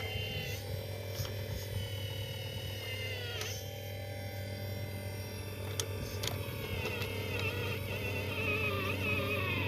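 Small electric motors of RC construction models whining over a steady low hum, their pitch wavering and dipping as they work.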